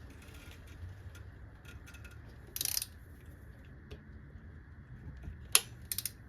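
Faint metal tool clicks from a wrench and socket on the engine's cylinder head bolts during torquing: a short rattle a little before the middle, then a sharp click and a quick cluster of clicks near the end.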